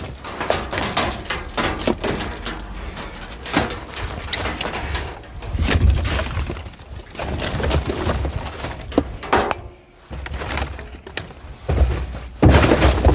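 Hands rummaging through discarded junk and pulling out electrical wires: an irregular clatter of knocks, clicks and rustling as cables and bits of plastic are handled, with low thuds at times.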